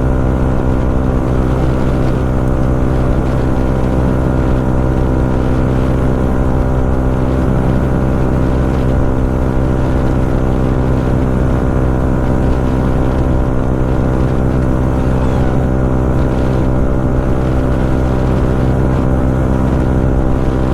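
Yamaha MT-15's 155 cc single-cylinder engine running through an Akrapovič full-system exhaust, cruising at a steady speed with an even, unchanging engine note.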